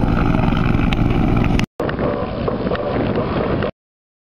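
CH-146 Griffon helicopter running in flight, a steady rotor and engine din with wind buffeting the microphone. It drops out for an instant just under two seconds in, returns duller, and then cuts off abruptly near the end.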